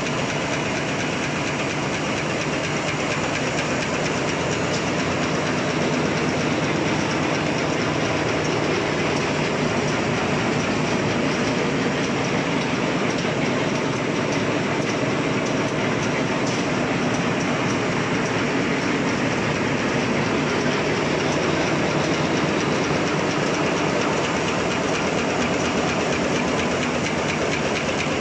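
Two-colour napkin paper printing and folding machine running at speed: a steady, fast mechanical clatter from its rollers and folding mechanism.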